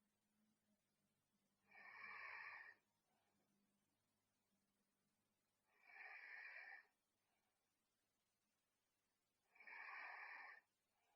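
A sleeping teenage girl snoring softly: three breathy snores about four seconds apart, each lasting about a second.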